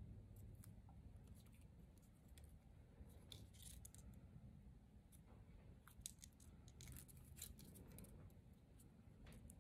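Faint crinkling and small clicks of copper foil tape and cardstock being handled as the tape is wrapped around a folded paper strip.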